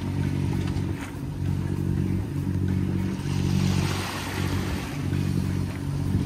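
Hunter 356 sailboat's inboard diesel engine running steadily while motoring, with water rushing past the hull that swells about halfway through.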